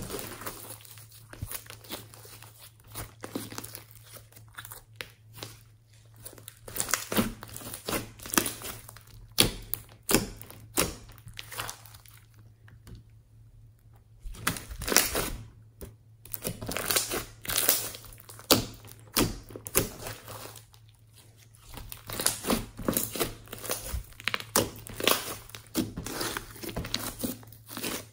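Hands kneading, poking and folding glossy slime mixed with foam beads and glitter: irregular sticky pops, clicks and crackles, with a brief pause about halfway.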